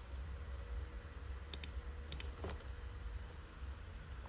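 Computer mouse clicking, with several pairs of sharp clicks between about one and a half and two and a half seconds in, over a low steady hum.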